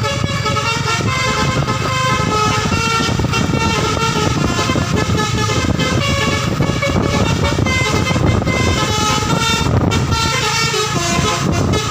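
Basuri V3 telolet horn playing a melody: a run of honked notes that step up and down in pitch, over a steady low engine rumble.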